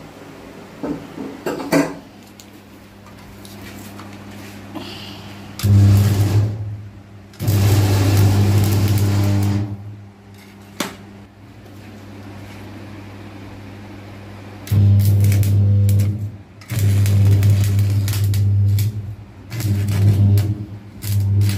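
Oil-cooled 450-amp transformer arc welder in use: the electrode arc crackles in about six bursts of one to two seconds each, with the transformer humming deeply under load while the arc burns. A few short clicks come near the start.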